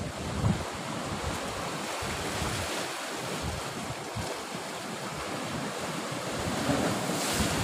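Sea surf washing and breaking below a rock cliff, a steady rushing noise, with gusts of wind buffeting the microphone.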